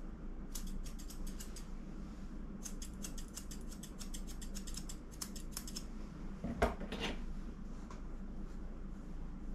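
Grooming scissors snipping through a dog's coat in two runs of quick snips. A couple of louder knocks follow about seven seconds in.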